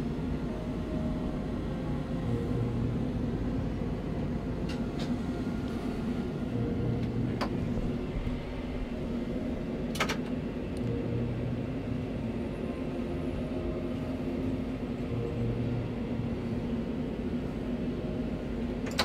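Steady hum of a Sapsan (Siemens Velaro RUS) high-speed electric train heard inside the driver's cab as it rolls slowly out of the depot, with a low drone that swells and fades every few seconds. A few sharp clicks, the loudest about ten seconds in.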